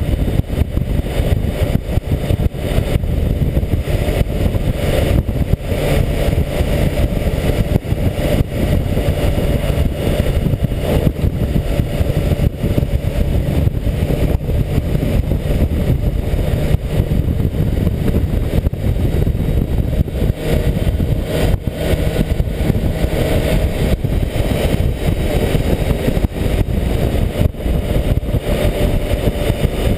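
Steady wind rumble on the microphone of a moving BMW K1600GTL touring motorcycle, with the bike's inline-six engine running underneath.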